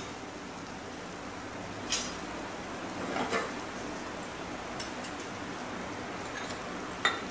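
A few light metal clinks of kitchen tongs against a small steel cup and steel pan, the strongest near the end, over a steady low hiss from the pan on the stove.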